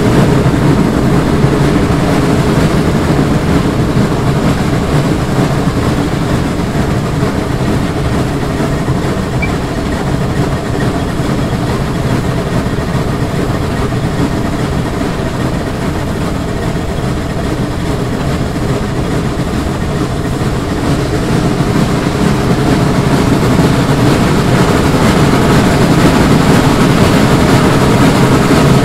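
A 1905 Lima Shay geared steam locomotive, No. 5, chugging along under steam, heard close up: a fast, steady stream of exhaust beats with running-gear clatter, growing louder toward the end.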